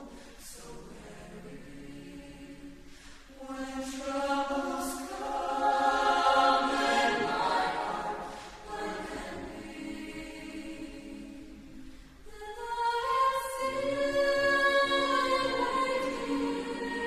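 Mixed-voice chamber choir singing sustained chords, soft at first, swelling loud about a third of the way in, easing off, then building again near the end.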